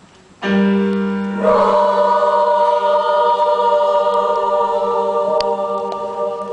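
Women's choir singing a cappella: a single low held note starts sharply about half a second in, then the full choir comes in about a second later on a sustained chord, held and beginning to fade near the end.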